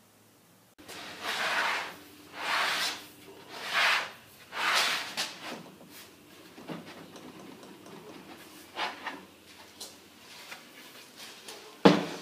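Four long rasping rubs about a second apart, then lighter scuffs and clicks, as the wooden runners of a melamine table-saw miter sled are worked to fit the saw's miter slots, wearing down the tight spots. A sharp knock near the end.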